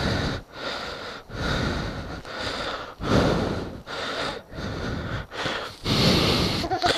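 A person walking through dry grass and brush while breathing hard, with rustling steps and long, noisy breaths in swells about once a second.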